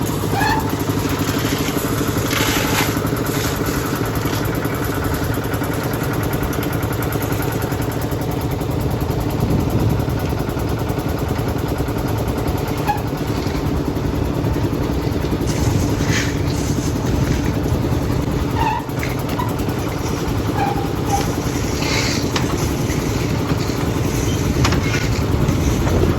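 An engine running steadily and without a break, with a few short knocks and clatters over it.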